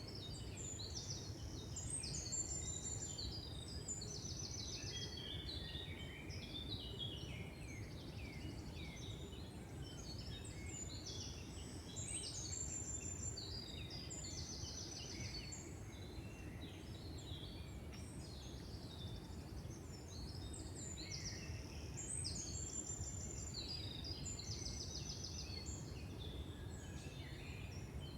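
Songbirds singing in the woods: many overlapping chirps and calls, with one trilled phrase coming back every few seconds, over a steady low background rumble.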